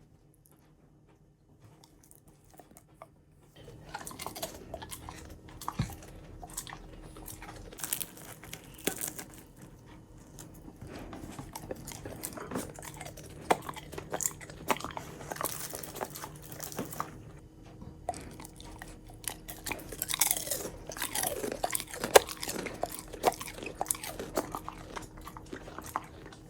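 Akita Inu dog crunching and chewing crisp fried tempura batter, with no filling inside. The crunching starts about three and a half seconds in, after a quiet start, and goes on as a dense run of crisp bites.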